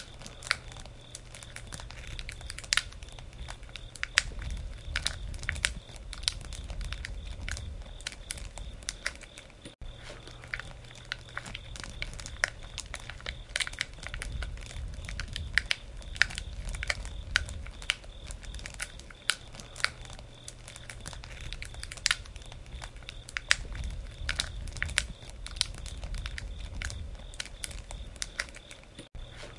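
Campfire burning: the wood crackles and pops in irregular sharp snaps over a low rumble.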